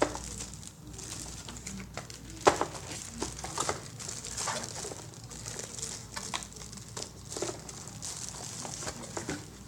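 Plastic bag crinkling and rustling as it is opened and handled to unwrap a router, with scattered sharp crackles and small clicks.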